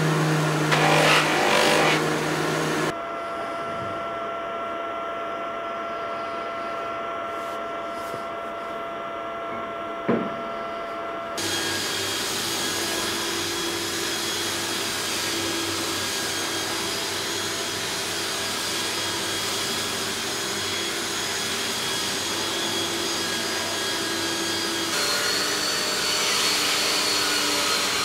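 Electric bench buffer running, its cloth wheel polishing a wooden axe handle for the first few seconds, then a steady motor hum that changes abruptly in pitch and level twice, with a single sharp click about ten seconds in.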